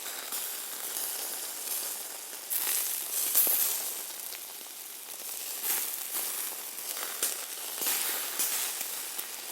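Hamburger meat sizzling on a grill: a steady high hiss full of small crackling pops, swelling louder about three seconds in.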